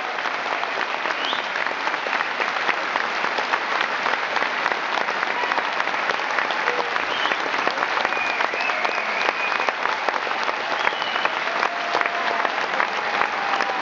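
A large theatre audience applauding: dense, steady clapping from many hands, with a few short high calls rising above it.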